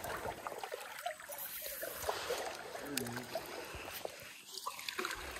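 Shallow stream water flowing steadily, with a few faint ticks and a brief low sound about three seconds in.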